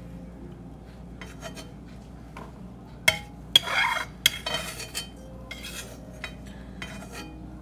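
A spoon scraping and scooping cashews along the bottom of a metal wok, with two sharp knocks of spoon on pan a little after three seconds in.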